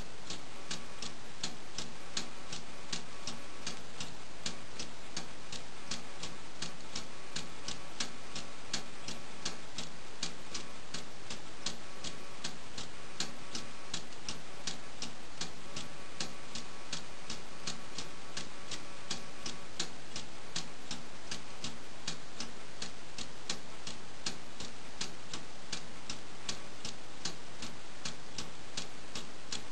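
Meccano balance-wheel clock movement ticking steadily, about three even ticks a second, as its spring-loaded balance wheel and escapement run under the clockwork motor's drive.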